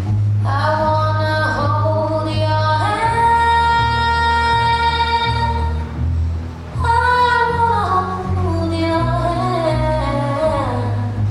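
A recorded 1960s pop song with a female lead voice holding long sung notes over a steady bass line.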